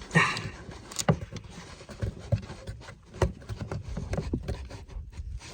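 Scattered plastic clicks and knocks, with handling noise in between, as a wiring connector is pinched and worked loose from the back of a car door panel.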